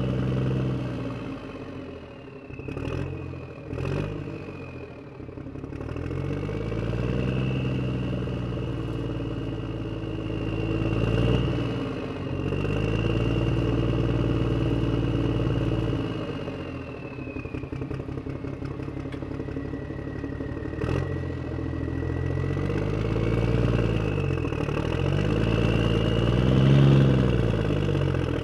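A motor vehicle engine running and revving, its pitch rising and falling again and again, with sharp clicks about three and four seconds in.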